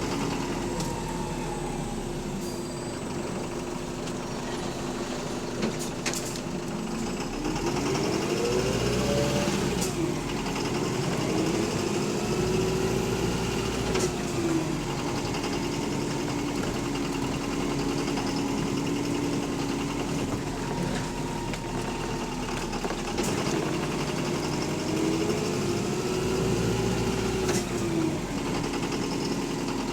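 Bus diesel engine running under way with a connecting-rod knock, the sign of a worn big-end bearing. Its pitch climbs twice as the bus pulls away and accelerates, about a quarter of the way in and again near the end, with a few sharp clicks and rattles.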